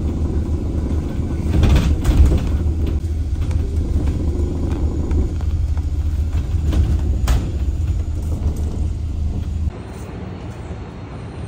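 Low rumble of engine and road noise heard inside a moving bus, with a few short knocks and rattles. Near the end it cuts off suddenly to a quieter, even hall ambience.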